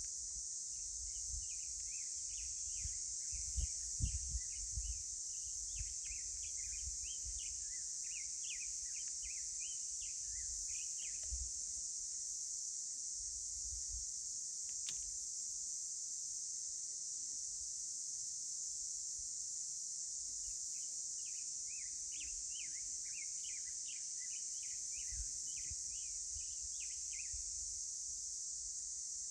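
Outdoor natural ambience: a steady, high insect drone throughout, with a bird's long run of quick chirps over the first ten seconds and again from about twenty seconds in. A few low wind rumbles hit the microphone, the strongest about four seconds in.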